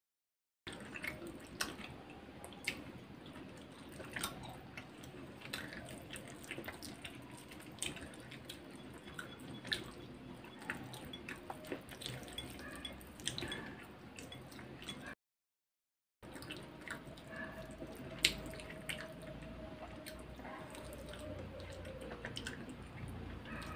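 Close-up eating sounds: fingers mixing and squishing chicken biryani rice and gravy by hand, and chewing with many small wet clicks. The sound drops out completely for about a second midway.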